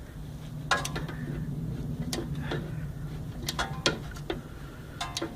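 Irregular sharp metallic clicks and clinks, about eight in all, from a torque wrench and a steel pry bar working a flexplate-to-torque-converter bolt while the flexplate slips and rotates. A low steady hum sits underneath for the first half or so.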